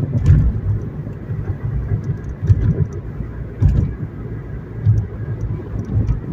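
Road noise heard from inside a moving car: a steady low rumble of tyres and engine, with a few louder low bumps as the wheels cross cracks and patches in the road.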